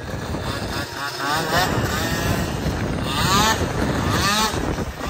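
Tuned MBK Booster two-stroke scooter engine revving through its expansion-chamber exhaust, its pitch rising and falling several times as it is ridden.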